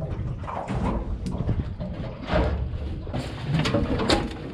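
Irregular knocks and rustling from gear being handled in an aluminum boat, over a steady low rumble.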